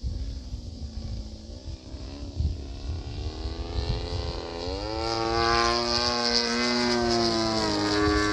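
Radio-controlled aerobatic airplane flying past, its motor and propeller making a steady pitched drone that wavers, then rises in pitch and grows louder a little past halfway. Wind rumbles on the microphone.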